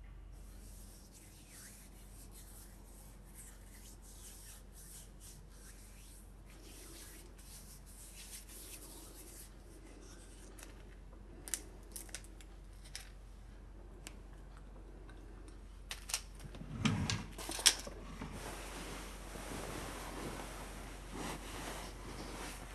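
Bedclothes rustling and being handled over quiet room tone, with a few faint small clicks in the middle. A louder rustle of the sheet with a couple of sharp knocks comes about three quarters of the way through, then soft rustling as the cover is lifted.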